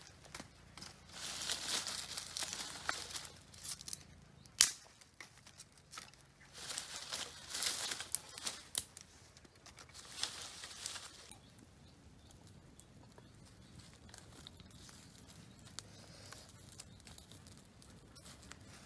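Scraping and rustling of dry sticks, twigs and leaf litter as a small fire is coaxed from smouldering tinder, in bursts of a second or two with a few sharp cracks. The second half is quieter.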